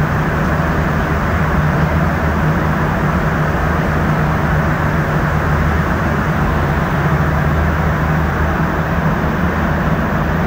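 Montreal Metro rubber-tyred train running through a tunnel, heard from inside the car: a steady rumble with a low hum underneath.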